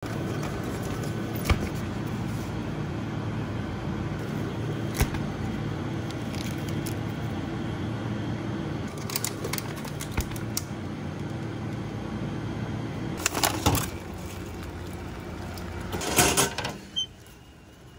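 Steady low machine hum, with scattered clicks and knocks as vending-machine pickup flaps are pushed open and goods are taken out. Near the end, just before the hum drops away, comes a burst of knocks.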